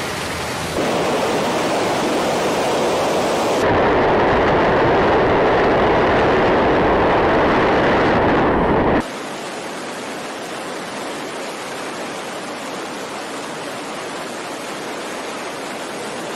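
Wind rushing past a wingsuit flyer's helmet camera in flight: a loud, steady rush of noise that gets louder about four seconds in and drops off abruptly about nine seconds in.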